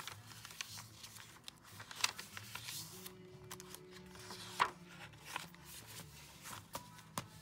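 Paper pages of a thick handmade journal rustling and flapping as they are flipped through by hand, with sharp paper slaps, the loudest about halfway through. Faint background music underneath.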